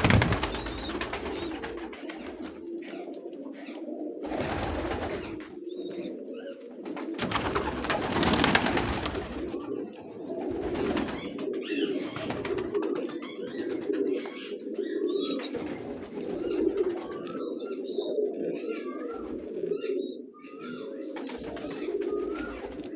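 White domestic pigeons cooing continuously in a low, throaty drone, with higher short calls in the second half and a few bursts of noise in the first half.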